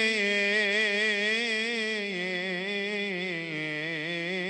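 Male deacons chanting a Coptic liturgical hymn in unison, holding one long melismatic vowel with wavering ornaments that steps slightly lower in pitch partway through.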